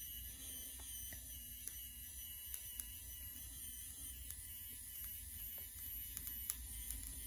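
SCRIB3D 3D printing pen's filament feed motor running with a faint steady whir while it pushes out melted filament, with scattered light ticks.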